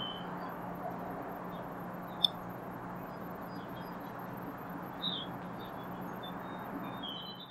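Outdoor grassland ambience: a steady hiss with a faint low hum, a few short, high bird chirps, and one sharp click about two seconds in.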